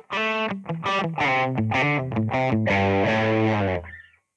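Fender Stratocaster Blacktop electric guitar, played through a Boss GT-100's Twin Reverb amp emulation, plays a quick phrase of single notes. The phrase steps down to a held low note that is cut off about four seconds in.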